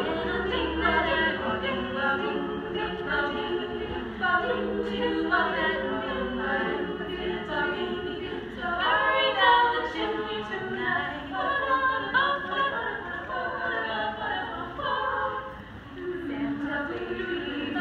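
Women's a cappella group singing in harmony, with no instruments.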